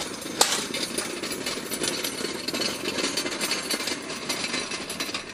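Steel wheeled ground-handling dollies under an electric multirotor aircraft rattling steadily as they are pushed and towed over asphalt, with a sharp metal clank about half a second in.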